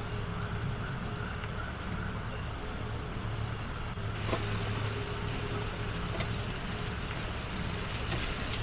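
Night ambience of a steady, high-pitched insect chorus over a low steady hum; the insect sound drops away suddenly about four seconds in, leaving the hum and a few faint clicks.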